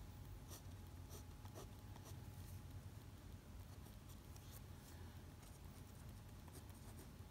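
Pen writing on paper: faint, short scratching strokes, most of them in the first few seconds, over a low steady room hum.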